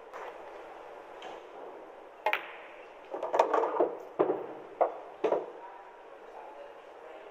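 Quiet hall ambience with about half a dozen sharp clicks and knocks, a second or less apart, clustered in the middle.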